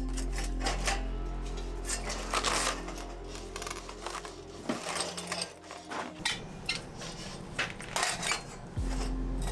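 Background music with long held low bass notes, over scattered clattering and clinking of hard objects being handled and moved.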